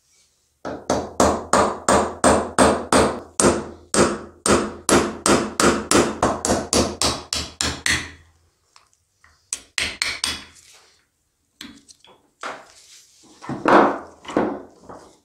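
Hammer tapping a steel pick against the steel body of a Honda VFR400 NC30 rear shock held in a vise, a fast even run of about three ringing metal strikes a second for roughly seven seconds. A few more taps follow, then lighter metal clinks and scrapes as the shock's parts are worked loose.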